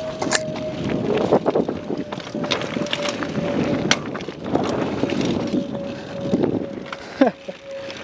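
Downhill mountain bike descending a dry dirt and gravel trail: knobby tyres crunching over loose stones, the bike rattling with frequent sharp clicks and knocks, and wind rushing on the microphone. A faint steady whine holds under it all.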